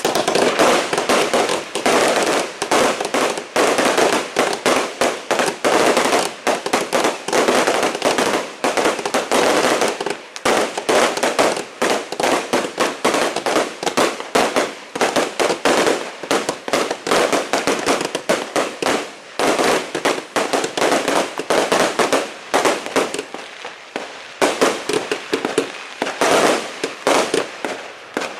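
Dense, continuous New Year's Eve fireworks: firecrackers and rockets banging and crackling many times a second with no pause.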